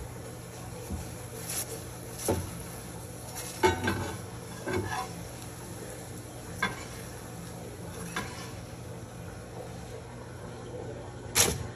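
Slotted metal spatula scraping and tapping against a frying pan while turning a chapati: a scattering of short scrapes and clicks, the loudest about four seconds in and just before the end, over a steady low hum.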